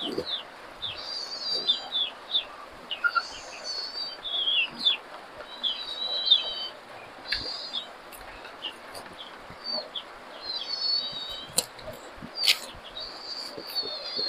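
Small birds calling and chirping repeatedly: short high whistles and sliding chirps that come and go throughout, with a few sharp close clicks of chewing and lip-smacking.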